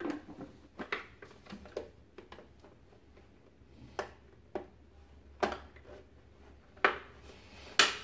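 Hard plastic parts of a Philips FC9924 vacuum's clear dust container being handled and fitted back on: scattered clicks and knocks at irregular intervals, the loudest near the end.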